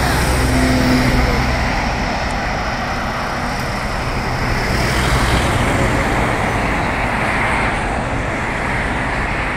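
Steady road traffic noise: cars and trucks running on a busy multi-lane city road.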